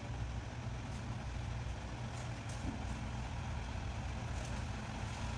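An engine idling steadily, a low even rumble, with a few faint ticks.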